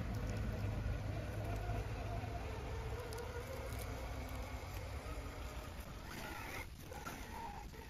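Hobbywing Fusion SE brushless motor of an Axial Capra 1/10 rock crawler whining at slow crawling speed as the truck climbs over rocks and roots, the whine rising and falling in pitch with the throttle. It grows slowly fainter as the truck climbs away.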